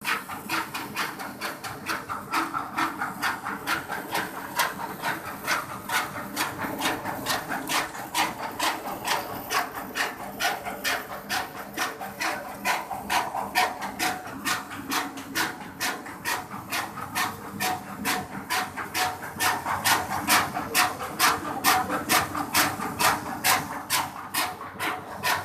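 Satay-skewer polishing machine running: a fast, regular clatter over a steady hum.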